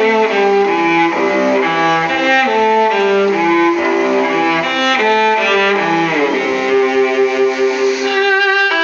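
Instrumental music playing back: a melody on bowed strings, violin over cello, in a run of held notes changing about every half second.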